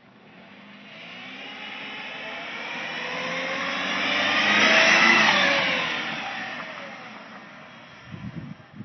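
A car driving past, its sound swelling to a peak about five seconds in and then fading, its tones sliding down in pitch as it goes by.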